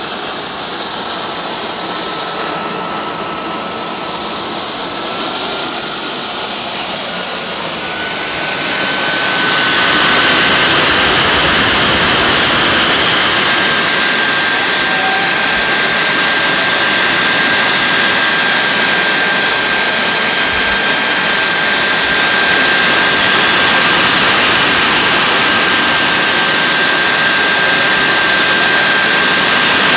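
Kerosene-fuelled micro gas turbine jet engine running: a loud steady roar with a thin high turbine whine. About eight to ten seconds in, the whine rises in pitch and the roar grows fuller as the engine spools up to higher power, then holds steady.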